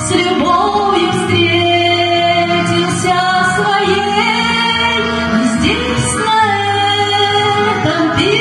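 A woman singing a slow, lyrical song into a microphone, holding long notes with vibrato, over an accompaniment with bass and light percussion.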